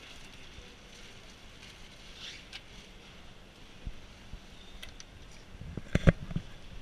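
Steady factory-floor background noise with a few light clicks, and a short cluster of loud low thumps about six seconds in.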